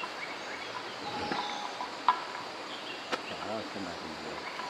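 Insects and crickets chirring, with short high chirps. A sharp click about two seconds in is the loudest sound, and a fainter click follows about a second later.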